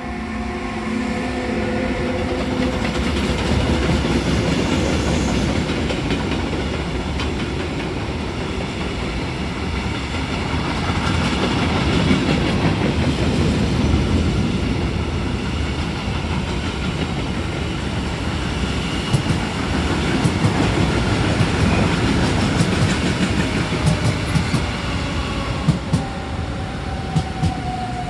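DB class 425 electric multiple unit running on the rails: a steady rolling rumble with a faint electric whine. Near the end the whine falls in pitch and sharp clicks of the wheels over rail joints come in.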